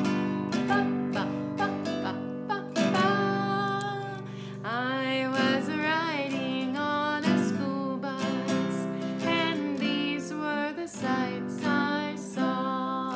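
Acoustic guitar strummed in steady chords with a woman singing over it.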